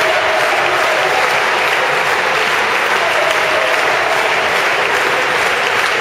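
Crowd applauding steadily, with a few voices mixed in.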